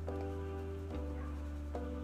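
Soft background music: sustained chords over a steady low bass, changing chord about once a second.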